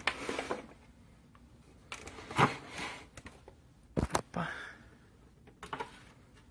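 Handling noise: short rustles and scrapes as the hands and camera move over the open chassis, with a sharp double click about four seconds in.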